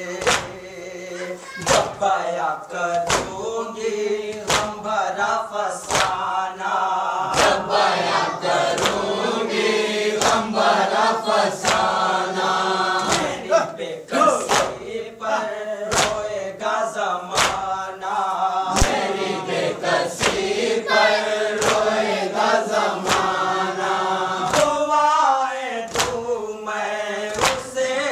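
A group chanting a Muharram noha (lament), with sharp rhythmic slaps about every three-quarters of a second: the chest-beating of matam keeping time with the chant.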